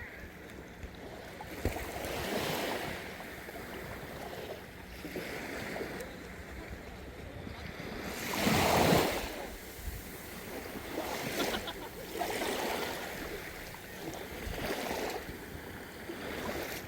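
Small waves of a calm sea washing and lapping, the water sound swelling every two to three seconds, with the biggest wash about halfway through.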